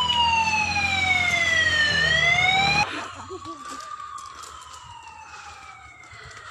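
Siren wailing slowly, its pitch sliding down and back up. It is loud at first over a low rumble, then drops abruptly to a fainter wail about three seconds in, still rising and falling.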